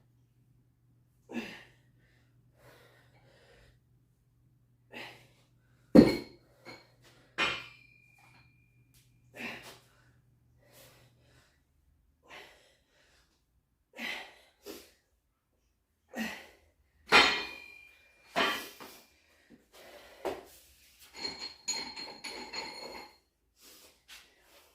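Hard, short breaths from a man straining through a set of dumbbell rows, one every second or two. A few metallic clinks from the dumbbell come among them, and the loudest sound is a sharp knock about six seconds in.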